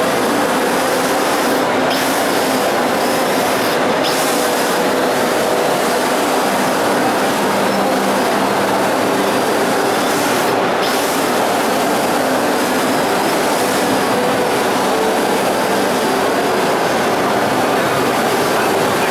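XK X350 quadcopter's electric motors and propellers buzzing steadily as it lifts off and flies, with a pitch that shifts a few seconds in as the throttle changes.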